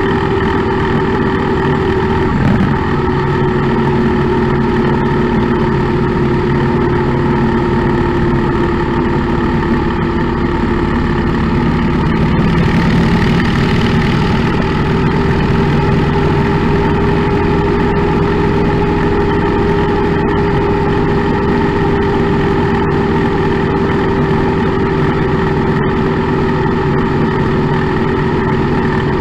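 V-twin cruiser motorcycle engine running at a steady cruising speed, heard from the rider's seat with wind and road noise. About halfway through, the rushing noise swells briefly.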